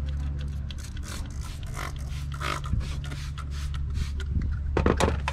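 Hand-held trigger spray bottle spritzing cleaner onto a plastic engine cover in many quick squirts, over a steady low hum.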